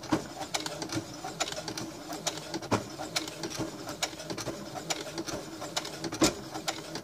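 Domestic computerized sewing machine stitching slowly through layered leather: a steady motor hum with a light needle tick several times a second and a couple of sharper clicks.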